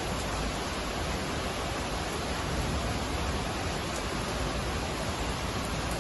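Steady rushing water of a flash flood: an even, unbroken noise with no breaks or separate events.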